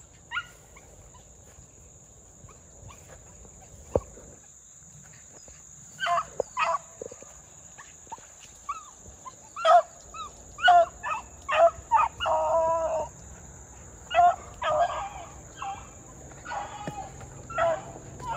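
Beagles baying on a rabbit's trail: a string of short, pitched bays and yelps starting about six seconds in, with one longer drawn-out bay midway, the sign that the dogs are running the rabbit by scent.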